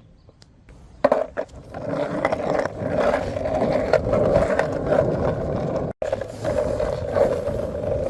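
A sharp clack of the skateboard about a second in, then its wheels rolling steadily over pavement with a continuous grinding rumble.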